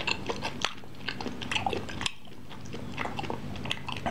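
Close-up chewing of a chewy fried tapioca fritter (cireng) in chili sauce: irregular mouth clicks and smacks throughout.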